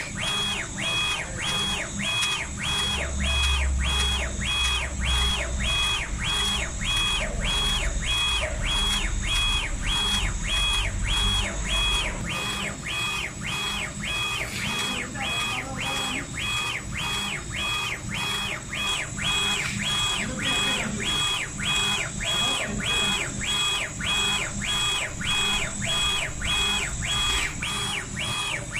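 CO2 laser engraver's head rastering back and forth across acrylic, its stepper motors whining with each pass and breaking briefly at each reversal, about one and a half passes a second. A low hum runs underneath and stops about twelve seconds in.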